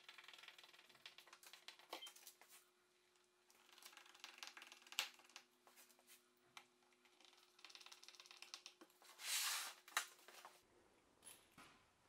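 Quiet handwork sounds: a hand screwdriver turning small screws into a concealed cup hinge on a wooden board, with light clicks of screws and metal and scrapes of the tool. A short, louder scrape comes about nine seconds in.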